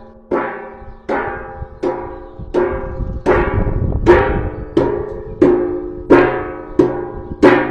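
Steady, loud rhythmic striking on a resonant, ringing object, about one hit every 0.7 seconds, each hit ringing out and dying away before the next.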